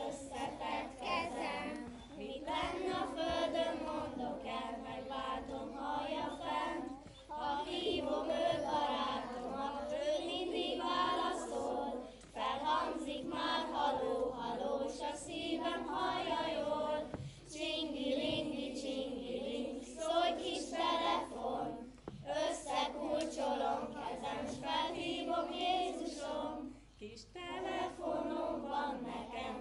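A group of children singing an easy action song together, in phrases of a few seconds with short breaks between.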